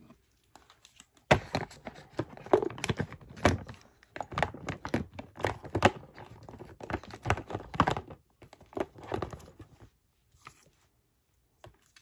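Plastic lotion bottles and jars clattering and knocking together as they are packed back into a plastic storage drawer. It is a quick, irregular run of knocks and rustles that stops shortly before the end.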